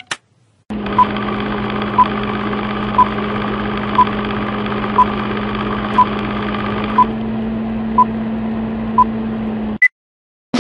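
Old-film countdown sound effect: a steady film-projector whir with a short beep once a second, nine in all, then one higher beep near the end before it cuts off suddenly.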